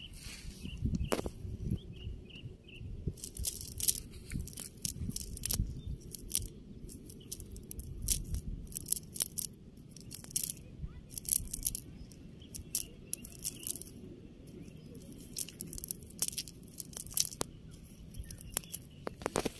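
Nylon cast net being handled, its mesh rustling and crackling in irregular sharp clicks as fish are picked out of it by hand.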